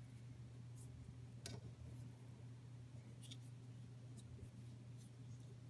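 Near silence: a steady low hum with a few faint, scattered clicks of small metal handling, tweezers and thread being worked at the lower looper of a Singer 14U52A serger.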